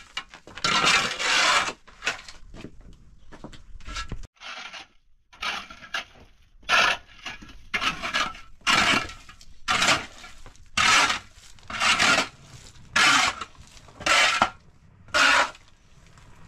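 Metal shovel blade scraping across a rubble- and ash-strewn floor as rubble is scooped up, about one stroke a second.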